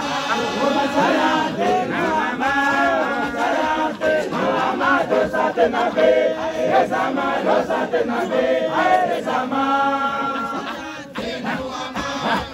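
A group of men chanting together over crowd noise. The chant breaks off briefly near the end and then resumes.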